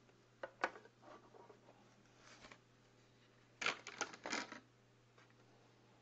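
Handling noise from a metal collector's tin turned in the hand: a couple of light clicks near the start, then a short cluster of clicks and rattles around the middle.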